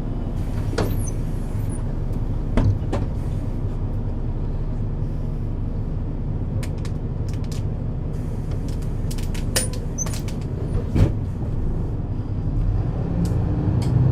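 Mercedes-Benz Citaro C2 city bus heard on board: the diesel engine runs with a steady low drone, and a few sharp clicks and rattles come through. Near the end the engine grows louder and its pitch rises as the bus picks up speed.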